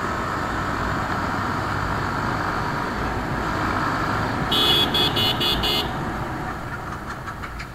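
Wind rush and engine of a Bajaj Pulsar motorcycle riding at about 60 km/h, with a vehicle horn sounded in a quick run of about five beeps, a little past the middle.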